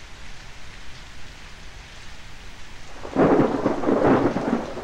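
Steady rain, then about three seconds in a loud roll of thunder that fades back into the rain.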